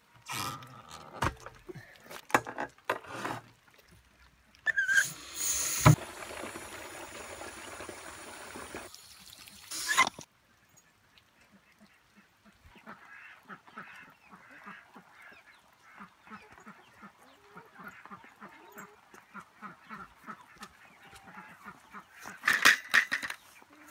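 Khaki Campbell ducks quacking, with a loud burst of calls near the end. Under it a garden hose runs water into a plastic water jug, in a noisy stretch early on and then as faint steady trickling and ticking.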